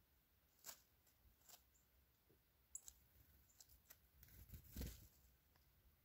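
Near silence outdoors over a forest floor, with scattered faint ticks and one soft rustle about four to five seconds in.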